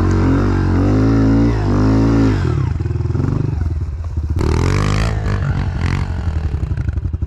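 Honda CRF110F pit bike's small single-cylinder four-stroke engine under way, revs rising and falling in the first couple of seconds, then running at lower, steadier revs. A brief rushing noise comes about four and a half seconds in.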